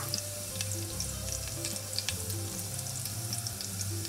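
Chopped garlic sizzling in hot vegetable oil in a saucepan, with a steady hiss and many small crackles and pops.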